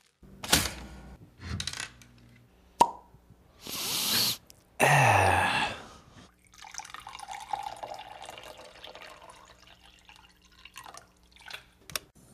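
Bathroom sink sounds: a few knocks and a sharp click, then water gushing from a tap in two loud bursts, followed by water running more quietly and steadily into the basin for a few seconds, with a few small clicks near the end.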